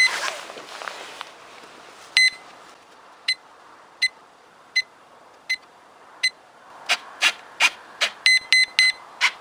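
Radio-control gear of an electric RC plane beeping while its receiver binds to the transmitter. One short high beep comes about two seconds in, then single beeps repeat about every three-quarters of a second. Near the end there is a quicker run of beeps with a few sharp clicks among them.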